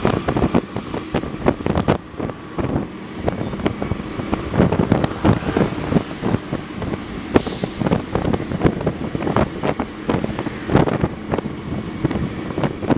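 A CC 206 diesel-electric locomotive and its train running at speed, the wheels clattering in a dense, irregular run of knocks over the rails under a steady rumble, with wind buffeting the microphone. A short hiss comes about halfway through.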